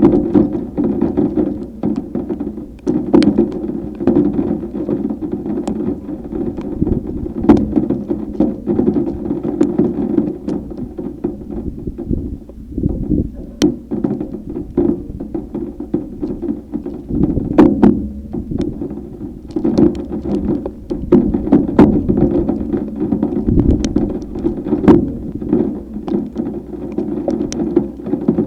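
Heavy storm rain drumming on a vehicle in irregular knocks and taps over a steady low drone.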